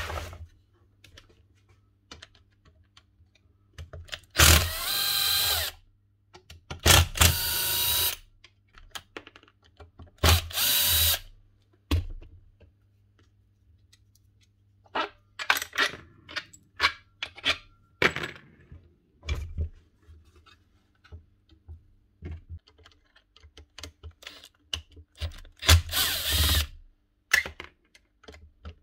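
Cordless drill/driver backing screws out of the casing of a Makita 1805B planer, in several short whirring runs of about a second each. Between the runs come small clicks and clinks of screws and metal parts being handled.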